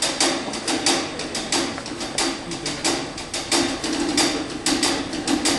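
A cappella vocal group keeping the beat with sharp hand percussion, about four to five crisp claps or snaps a second, over a low hummed bass line pulsing in time.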